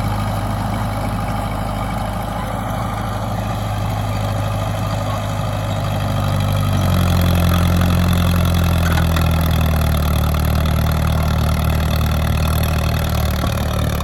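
A 1940s Caterpillar D4 bulldozer's four-cylinder diesel engine running steadily as the machine works; about seven seconds in the engine grows louder and its note shifts.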